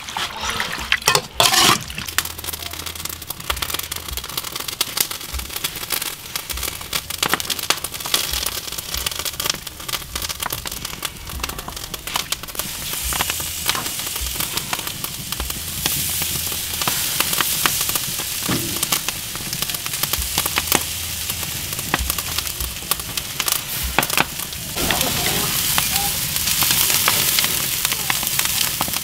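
Marinated pig intestines sizzling and crackling on a wire grill over charcoal, a steady hiss full of small pops. A metal ladle knocks against an aluminium pot in the first couple of seconds.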